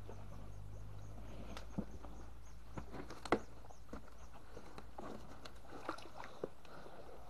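Scattered splashes and knocks of netted fish flopping in a styrofoam box and shallow water, with one louder knock near the middle. A steady low hum runs underneath.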